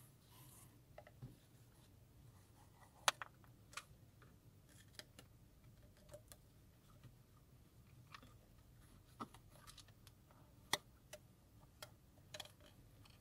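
Near silence with a few faint, sharp clicks and taps, the clearest about three seconds in and near eleven seconds, from a small glass air-freshener bottle with a wooden cap and its cord being handled and hung on a car's rear-view mirror.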